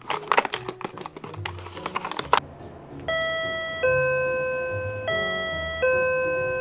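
A run of quick clicks and taps, then a wall-mounted apartment video intercom chimes a two-note descending ding-dong twice as a visitor rings. Each note rings on and fades slowly.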